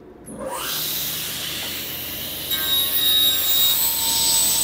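Sliding table panel saw starting up, its motor winding up in pitch and then running with a steady whir. About two and a half seconds in the blade cuts into MDF, and the sound grows louder with a high whine.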